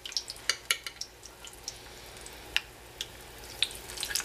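Hushpuppies frying in oil at medium-high heat in a saucepan: a steady sizzle with frequent crackles and a few louder pops.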